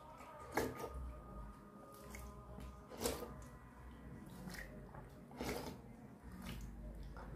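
A hand squishing and mixing panta bhat, cooked rice soaked in water, in a steel bowl: soft wet squelching and dripping, with a few louder wet splats spaced two to three seconds apart.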